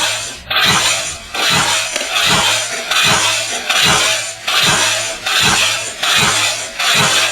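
Footsteps crunching over rubble and broken debris at a steady walking pace, a little faster than one step a second, each step a gritty crunch with a dull thud underneath.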